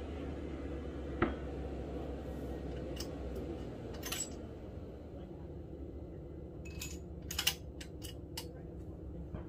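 Sharp metallic clicks and clinks of a bolt-action .33 XC rifle being handled and reloaded, a cluster of them near the end, after a single knock about a second in. A steady low rumble runs underneath.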